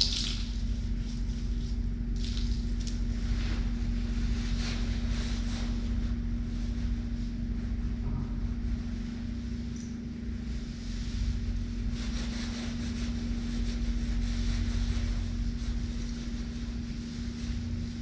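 A steady low mechanical hum with one constant tone, like a building's ventilation fan, and faint soft rubbing now and then as a face is dabbed with a sponge.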